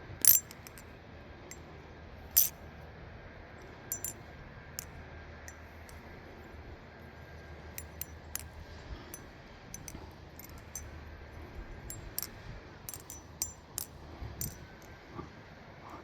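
Balisong (butterfly knife) with titanium channel handles being flipped: sharp metallic clicks and clacks as the handles and blade knock together, irregular. The two loudest come near the start, with many lighter clicks later on.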